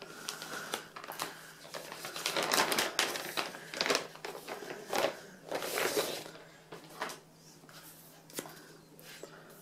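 Clear plastic bag crinkling and rustling in repeated bursts as a laptop is pulled out of it, dying down after about seven seconds.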